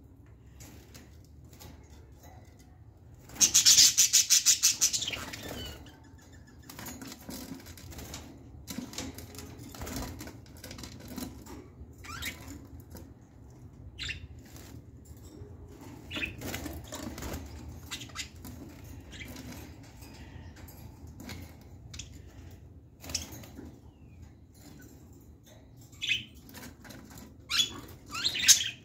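Caged budgerigars: a loud burst of rapid wingbeats about three and a half seconds in, lasting about two seconds, then scattered short chirps, a few louder near the end.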